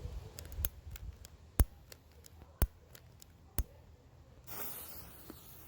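A series of sharp clicks: a few faint ones, then three loud ones about a second apart. After that, a steady hiss starts about four and a half seconds in.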